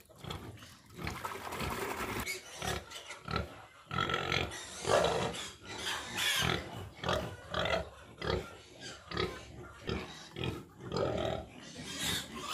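Pigs in their pens grunting and squealing in irregular calls, with louder squeals about five and six seconds in and again near the end.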